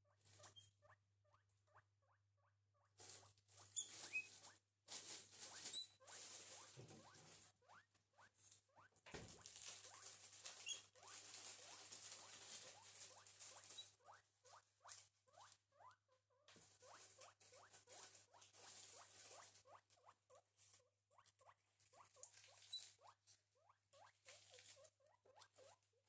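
Guinea pig squeaking in quick runs of short, soft squeaks while it rustles and shuffles about, the rustling coming in bursts.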